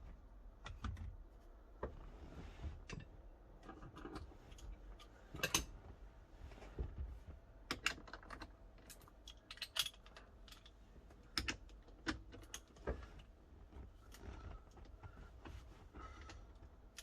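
Irregular metallic clicks and clinks of hand tools: a socket and wrench being worked on the steering wheel's 16 mm centre nut as it is undone. A few louder knocks stand out among the lighter clicks.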